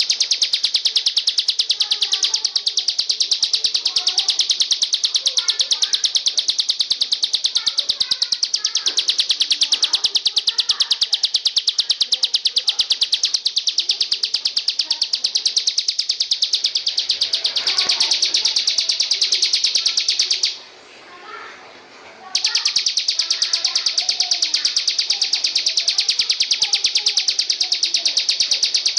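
An insect's continuous high-pitched trill, a fast even pulse train that never pauses for breath, with faint bird calls underneath. It stops for about two seconds about two-thirds of the way through, then starts again.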